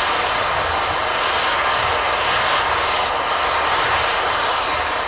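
Steady, loud hiss of steam from the ex-Réseau Breton 230T E327 4-6-0T steam tank locomotive standing at rest.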